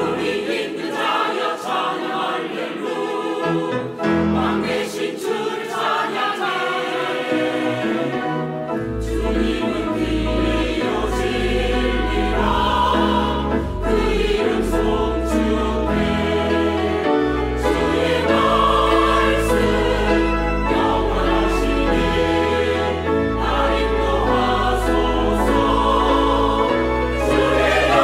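Mixed church choir singing a Korean hymn of praise in harmony with piano accompaniment. A deep bass line joins about nine seconds in, and the sound grows fuller.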